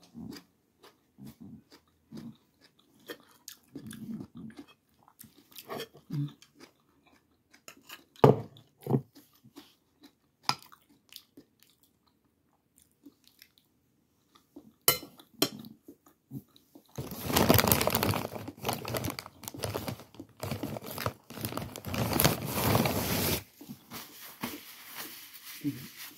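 Close-up chewing of food, with small mouth smacks and clicks. About two-thirds of the way through, a loud crackling rustle lasts some six seconds, then the quieter chewing returns.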